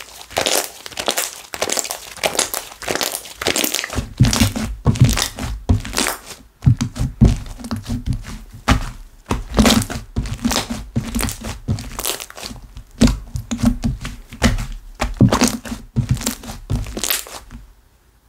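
Slime being kneaded and pressed by hand, making rapid crackling pops. From about four seconds in, duller low thumps join in as it is pushed down.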